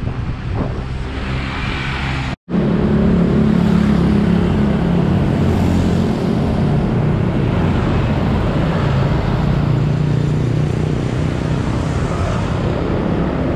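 Road traffic heard from a moving bicycle: cars and motorcycles running close by, with a steady low engine hum. The sound drops out completely for a moment about two and a half seconds in, then comes back louder.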